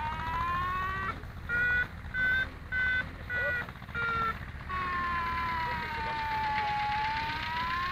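Electronic variometer tone. A continuous tone slides slowly in pitch, breaks into about five short, higher-pitched beeps in the middle, then returns to a continuous tone that dips lower and rises again near the end. Beeping is the usual variometer signal for climbing and the steady tone for sinking, so the glider passes through rising air.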